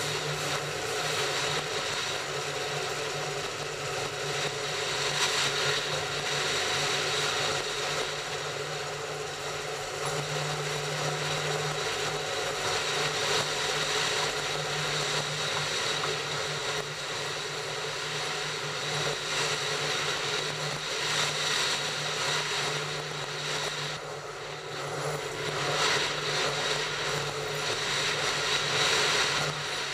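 Train running along the track: a steady mix of wheel-on-rail and running noise with a constant low hum.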